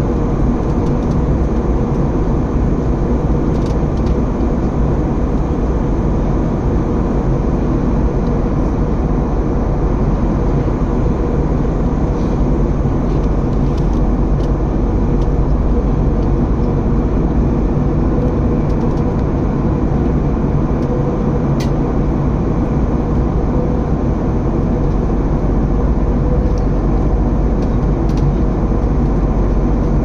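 Steady cabin noise of an airliner in flight: a constant low rumble of engines and rushing air that does not change, with a faint even hum over it.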